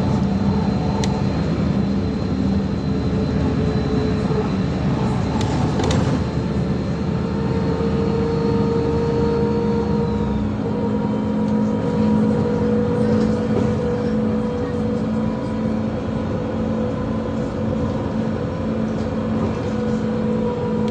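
Inside a LiAZ-5292.67 city bus running on compressed natural gas: the engine hums steadily under road and tyre noise as the bus drives along. A thin high whine drops away about ten seconds in.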